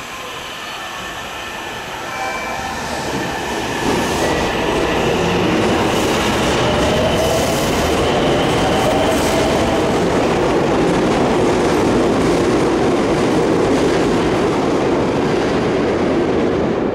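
Meitetsu Seto Line electric train pulling out of an underground station. The motors whine and rise slowly in pitch as it gathers speed, over the wheels' running noise on the rails. The sound grows loud a few seconds in and stays loud as the cars pass.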